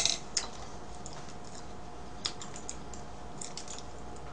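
A sharp clatter at the start as a plastic fork is set down on a cake board, then scattered light clicks of a computer mouse at irregular intervals.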